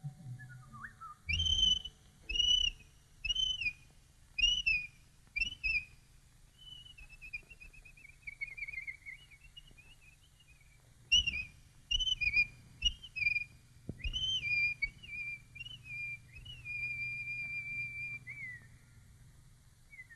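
Whistled cartoon bird calls: a string of short high notes, each rising and then falling, then a downward warbling run in the middle, then more short chirps ending in a long held note that dips at its end.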